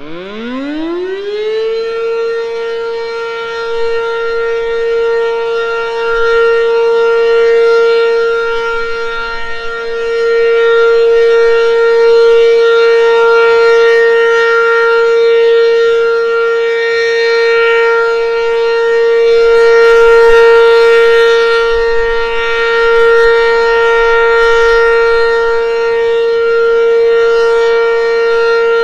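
ACA Banshee 8-port outdoor warning siren winding up from a low growl to a steady high tone within about two seconds, then holding the steady Full Alert tone, its loudness swelling and easing slowly. The steady unbroken tone is the alert signal, sounded here as a routine test.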